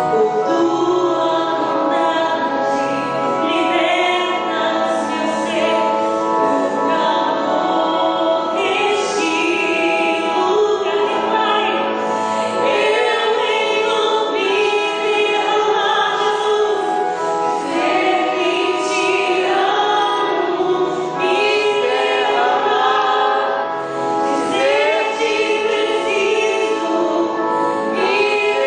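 A woman singing a gospel song through a microphone, accompanied by sustained church organ chords.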